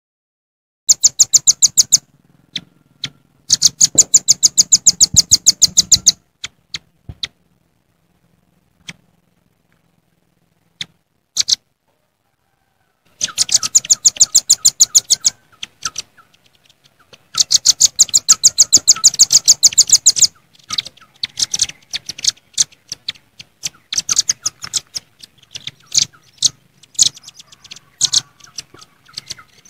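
Velvet-fronted nuthatches calling: fast trills of sharp, high notes, about ten a second, in runs of one to three seconds, with scattered single notes between. These are the noisy, excited calls given to a rival. There are long stretches of dead silence in the middle.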